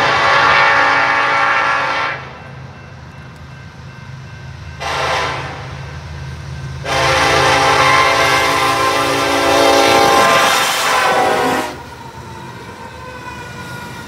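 Horn of a Union Pacific SD70AH diesel locomotive leading an approaching freight train, sounding for a grade crossing. A long blast ends about two seconds in, a short blast comes around five seconds, and another long blast runs from about seven to nearly twelve seconds, all over the steady low rumble of the locomotive engines.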